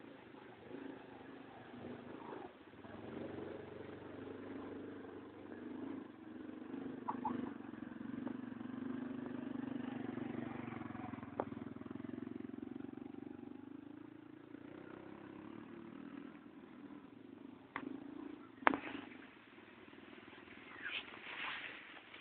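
Small motorcycle engine running as the bike rides past on a dirt track, getting louder to a peak about halfway through and then fading away. A couple of sharp clicks come near the end.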